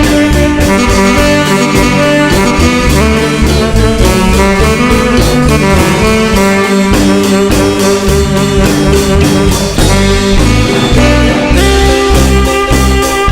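Marimba orquesta dance music: saxophones and brass carry the melody over a steady, even beat.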